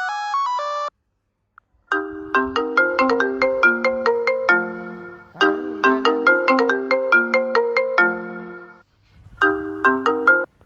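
Samsung smartphone ringtones played one after another. A short electronic ring is cut off within the first second. After a brief gap comes a melodic ringtone of quick, bright, separately struck notes, which starts over about five seconds in and begins a third time shortly before being cut off near the end.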